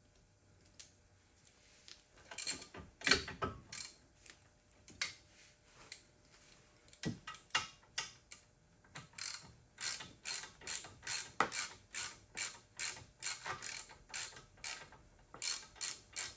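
Ratchet wrench clicking in short runs as caliper bolts are turned on a car's rear disc brake, the clicks coming scattered at first and then steadily about two a second.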